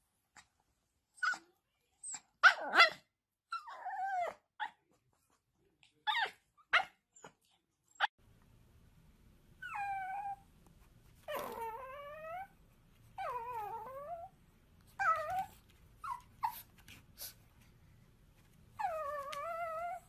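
Two small dogs yipping and growling as they play-fight. After a cut about 8 s in, a chihuahua whines in about six falling whimpers, each up to about a second long, begging for food.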